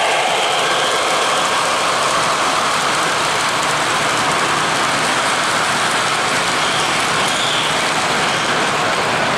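O-gauge model freight cars rolling over three-rail track, a steady rushing hiss of wheels on metal rail with no change in level.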